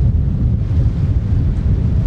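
Wind buffeting the camera microphone: a loud, steady low rumble.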